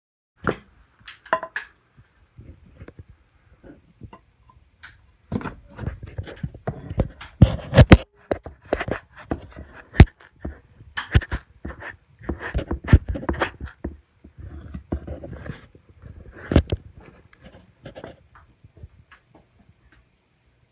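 Irregular knocks, scrapes and rustles of a camera being jostled and carried along close to the floor, thickest in the middle stretch.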